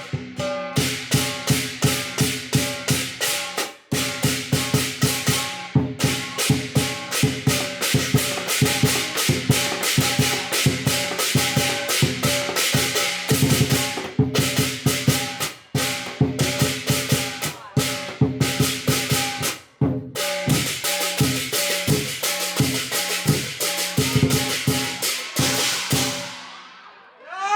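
Chinese lion dance percussion: a drum beaten in fast rolls and strokes with clashing cymbals and ringing gong tones, broken by a few short pauses. Near the end the beating stops and fades away.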